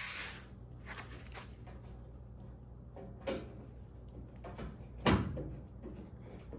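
Scattered knocks and clicks of hand tools and metal hardware being handled while body-panel fasteners are fitted, over a steady low hum; the loudest knock comes about five seconds in.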